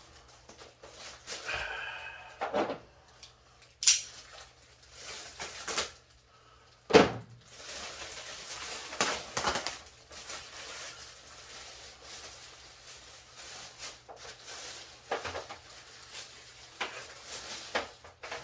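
Unpacking and handling noises: scattered knocks and clatter with rustling in between, as the parts of a boxed tower fan are pulled out and set down. The sharpest knock comes about seven seconds in.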